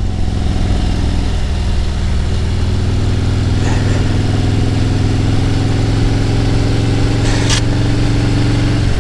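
Motorcycle engine running steadily under way, its note rising slowly as the bike picks up speed, with wind and road noise on the rider's microphone.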